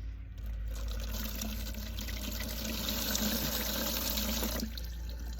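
Water fountain running, its stream of water splashing steadily, then shutting off near the end.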